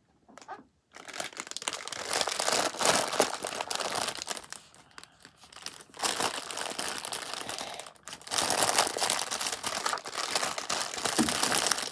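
Crinkling, rustling handling noise in long bursts, starting about a second in, easing off briefly around the middle and again a few seconds later.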